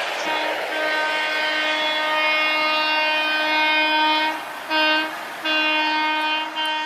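Train horn sounding over the rumble of a passing train: one long blast of about four seconds, then a short blast, a blast of about a second, and a brief toot near the end.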